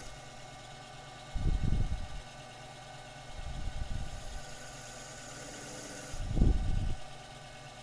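Small cue lathe motor humming steadily as it spins a cue shaft while a hand blade trims the cue tip down flush with the ferrule. There are three louder low surges, about a second and a half in, around four seconds and around six and a half seconds.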